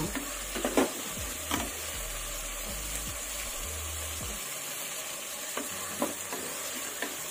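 Onions, green chillies, tomatoes and fresh herbs sizzling in hot oil and ghee in a pressure cooker pan, stirred with a wooden spatula that knocks and scrapes against the pan a few times.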